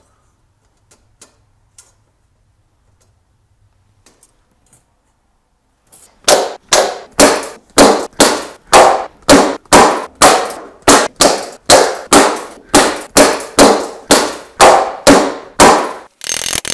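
Hammer peening nail rivets down on a sheet-steel helmet: a few faint taps, then from about six seconds in a steady run of sharp ringing metal strikes, about two a second.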